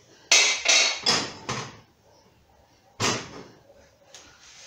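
Knocks and clatter of kitchenware handled on a gas stovetop: four quick hard knocks in about a second and a half, then another single knock about three seconds in.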